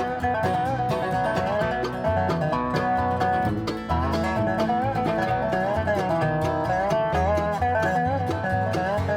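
Background music: bluegrass-style instrumental with banjo and guitar picking over a steady bass beat.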